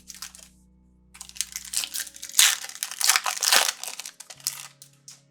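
Foil wrapper of a trading card pack being crinkled and torn open by hand, a dense run of sharp crackling for about three and a half seconds.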